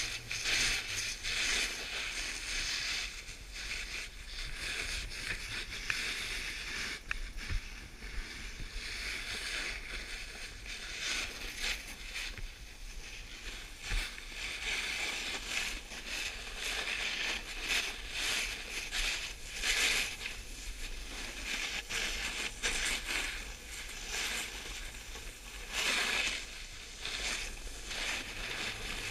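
Snowboard sliding and carving over packed snow: a scraping hiss that swells and fades as the board turns, loudest around the middle and again near the end.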